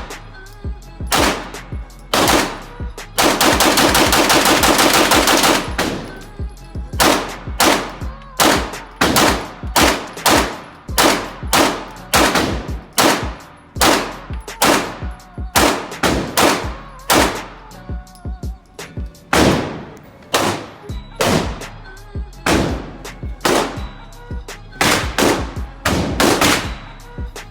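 Gunfire from a semi-automatic firearm: a long run of single shots, roughly one to two a second, with a fast continuous string of shots lasting about two and a half seconds around three seconds in.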